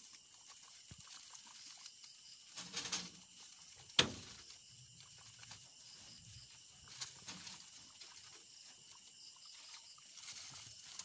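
Guinea pigs munching fresh grass and rustling through the stalks, with a soft irregular crunching and rustling. One sharp click or snap about four seconds in is the loudest sound.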